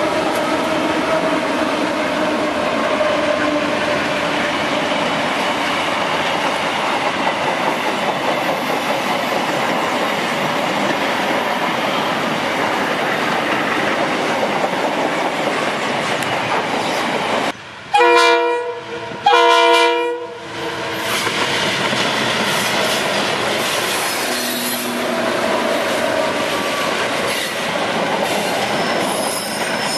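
Freight train hauled by diesel locomotives rolling past, with steady wheel-and-rail noise and the clack of wagons over the rail joints. A little after halfway a locomotive horn sounds two short blasts, each about a second long and the loudest sound here.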